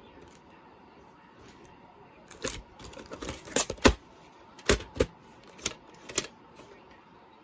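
A plastic VHS clamshell case being opened and the cassette lifted out and handled: a string of about ten sharp plastic clicks and knocks with short scrapes between them, starting about two seconds in.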